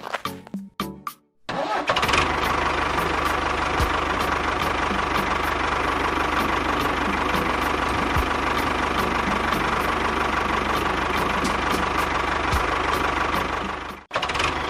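A small engine or motor runs steadily, starting about a second and a half in and cutting off abruptly shortly before the end.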